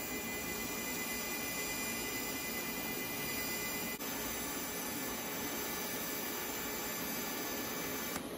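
TIG welding arc on a steel axle bracket: a steady hiss with a faint high whine in the first half. The arc cuts off just before the end.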